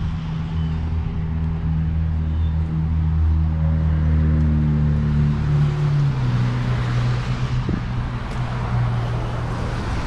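Bobcat S650 skid steer's diesel engine running steadily. Its engine speed drops about six seconds in and then holds at the lower pitch.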